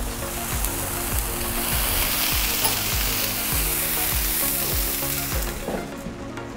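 Frozen jalapeño poppers sizzling as they shallow-fry in oil on a Blackstone griddle's flat top. The sizzle drops away suddenly near the end as the griddle hood is lowered. Background music with a steady beat, about two a second, plays throughout.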